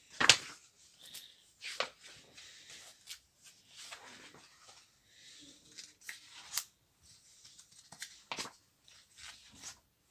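Glossy pages of a large book being turned and handled: a series of quick paper swishes and rustles, the loudest just after the start, with softer handling between them.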